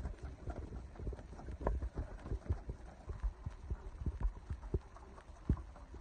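Young racing pigeons on a landing board making irregular taps and knocks as they hop, peck and land, mixed with the flutter of wings flapping.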